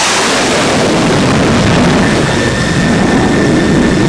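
Twin jet engines of an F-14 Tomcat running loud: a steady rushing noise with a deep rumble, and a thin high whine joining about halfway through.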